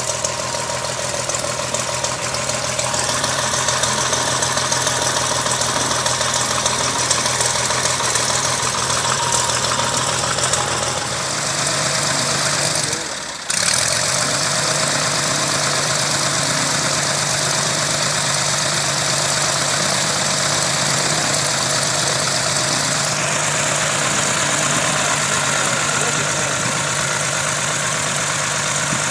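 Continental O-300 six-cylinder air-cooled engine of a Cessna 172G running steadily on the ground, on its first run after a top overhaul. The sound shifts slightly a few times and dips briefly about halfway through.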